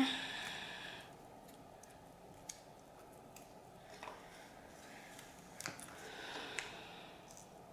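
Faint handling sounds with a few soft clicks as homemade slime is worked by hand.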